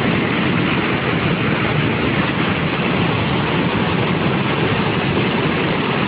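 A fast, muddy flash-flood torrent rushing past, heard as a steady, loud rush of water that does not let up.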